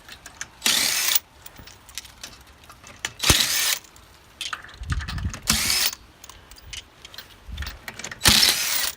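A power tool spinning wheel lug nuts off in four short bursts of about half a second each, with a few dull knocks between them.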